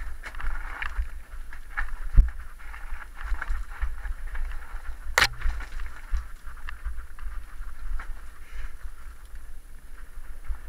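Mountain bike rattling and bumping along a rough dirt trail, with the camera microphone picking up low rumbling buffeting and scattered knocks as the bike jolts over the ground. A sharp knock about five seconds in.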